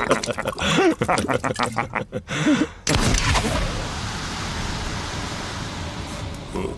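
Men laughing and chuckling over drinks, with sharp knocks and clatter, for about the first three seconds. Then an abrupt change to a steady even hiss of outdoor ambience.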